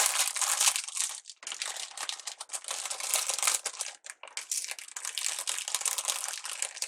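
Crisp plastic crinkling and crackling as it is handled, almost without break, with short pauses about a second and a half in and again about four seconds in.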